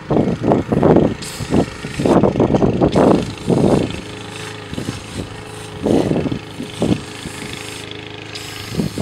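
Aerosol can of foaming coil cleaner hissing in spurts as it is sprayed onto an air-conditioner condenser coil. Loud, irregular low rumbles run throughout.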